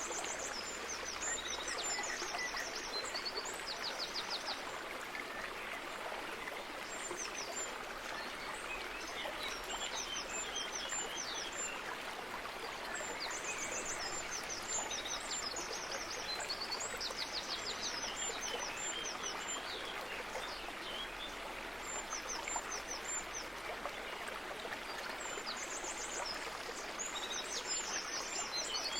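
Small birds singing high, short chirping and trilling phrases every few seconds, over a steady rush of running water.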